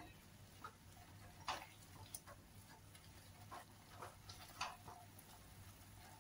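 Soft, irregular scrapes and taps of a silicone spatula against a kadhai while stirring thick tomato-onion masala; faint.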